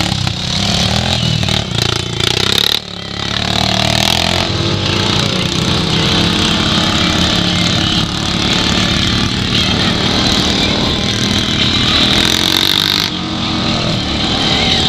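Honda Pioneer 500 side-by-side's engine running steadily as it drives along a dirt trail, with a hiss of wind and tyre noise over it. It dips briefly about three seconds in, then carries on.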